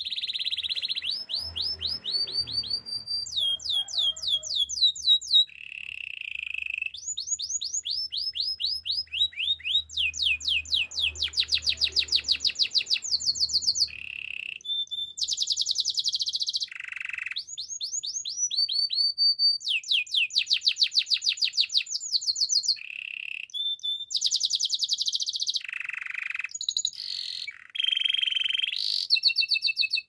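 Domestic canary singing a long, unbroken song of rapid trills: each phrase is a fast run of the same high note repeated many times a second, and the bird switches to a new phrase every second or two.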